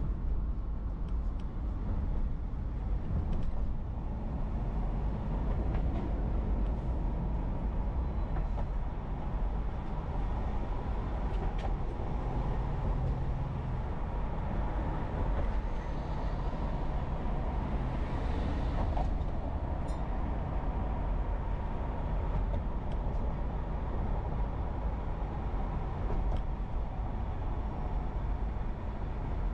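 Steady low road and tyre rumble of a car driving at speed, heard from inside the cabin, with a brief rising hiss about eighteen seconds in.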